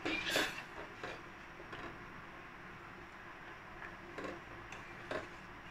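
Wooden spatula knocking and scraping against a stainless-steel pot while stirring sugar and water into syrup: a few light taps at uneven intervals, the loudest right at the start.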